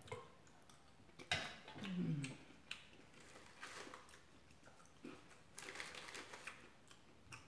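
Faint close-miked eating sounds: sharp mouth and spoon clicks while a spoonful of chicken noodle soup is eaten, with a brief hummed sound about two seconds in. A crinkle of a cracker sleeve follows a little past halfway, as a hand reaches into the opened pack.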